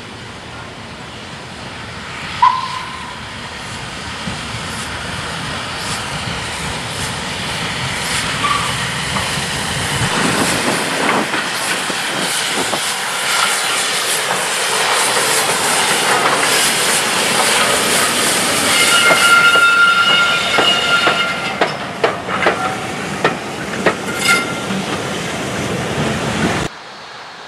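Steam locomotive and its train of coaches passing close, with steam hissing and wheels clacking over the rail joints, growing louder as it comes near. A thin, high squeal sounds a few times in the second half, and the sound cuts off abruptly near the end.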